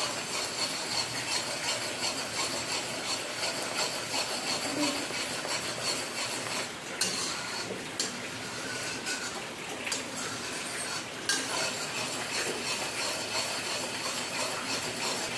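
Metal spatula stirring and scraping around a kadhai of foaming sugar-and-milk syrup (chashni) on low heat, with steady bubbling under frequent light scrapes and taps. The stirring keeps the syrup from sticking to the pan.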